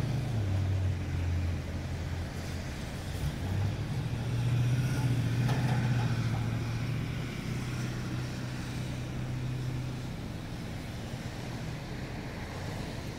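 Minivan engine idling with a steady low hum, which grows a little louder for a few seconds around the middle.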